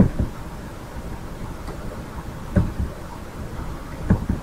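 Low steady rumbling background noise with a few soft thumps, one about two and a half seconds in and two close together near the end.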